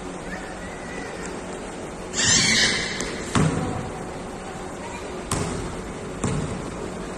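A basketball hitting hard three times, about a second or two apart, as it is shot at the hoop and bounces on the concrete court. Just before the first hit there is a loud, brief burst of noise.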